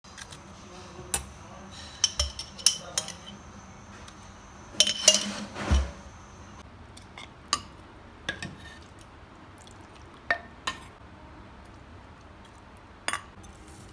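Metal tongs and a serving ladle clinking and scraping against clay handi pots: scattered sharp clicks and clinks, with a longer bout of clattering about five seconds in.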